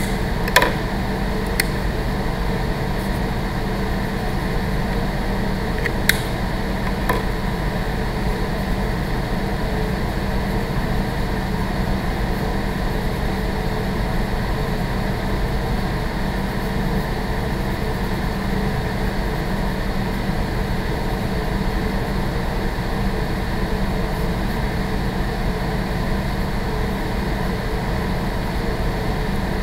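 Building ventilation running: a steady low hum with a wash of air noise, broken by a few brief clicks in the first seven seconds or so.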